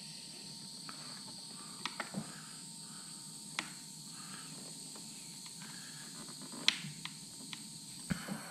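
Handheld propane torch burning with a steady high hiss, broken by a few sharp, short clicks.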